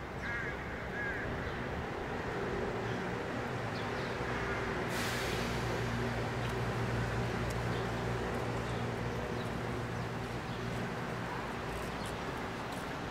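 Street sound of a large vehicle's engine hum that swells through the middle and fades near the end, with a sudden hiss about five seconds in like an air-brake release. A few short bird calls are heard right at the start.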